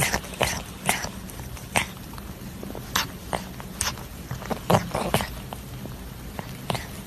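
A pet animal making a string of short, sharp, irregular noises, about a dozen in all, over a steady low hum.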